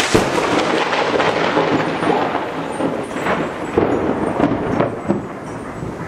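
Thunder from a close lightning strike: a sudden sharp crack, then crackling, rumbling thunder with repeated loud peaks for several seconds, slowly easing off.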